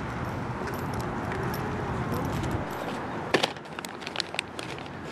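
Steady low background rumble, then from about three seconds in a quick run of sharp, light clicks and clinks of small hard objects.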